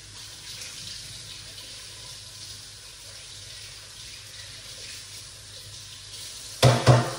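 Kitchen tap running steadily, then two loud knocks close together near the end.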